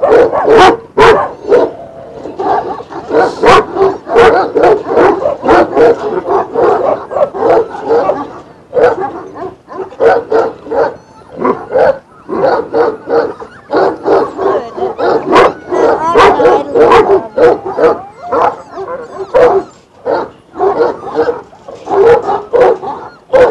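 Several large shepherd dogs barking repeatedly from their kennels, one bark on top of another, loud and continuous. The barking is stirred up by another dog roaming loose around the kennels.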